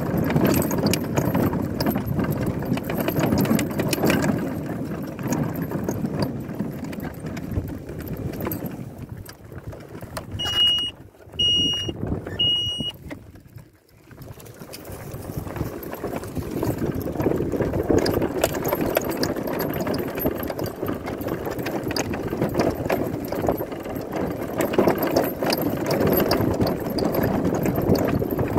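Steady rumbling noise of riding over a rough track, a mix of wind on the microphone and wheels. The rumble drops away about halfway through, and three short, high beeps sound about a second apart.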